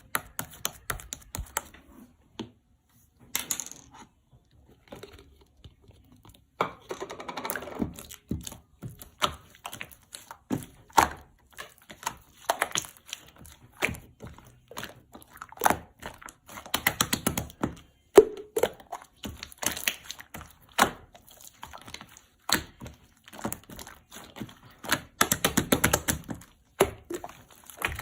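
A run of irregular taps, clicks and thunks, with denser bursts of rapid clicking about seven, seventeen and twenty-five seconds in.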